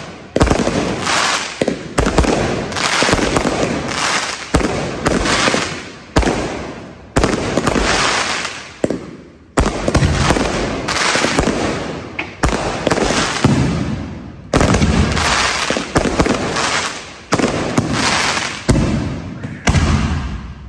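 Fireworks going off in quick succession: about fifteen loud sharp bangs, roughly one a second, each trailing off in a second or so of fading crackle and hiss. The barrage stops abruptly near the end.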